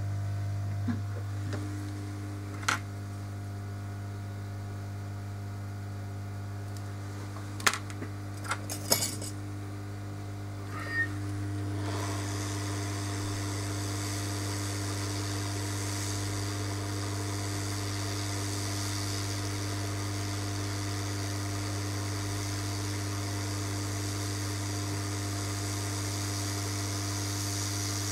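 Steady electrical mains hum from repair-bench equipment, with a few sharp small clicks in the first half. About twelve seconds in, a steady airy hiss starts and holds.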